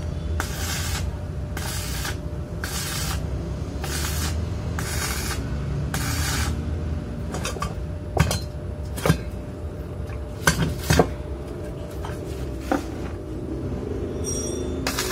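Steel parts clinking and knocking together as they are handled and set in place, with several sharp clinks in the second half. In the first half a regular swishing noise comes about once a second.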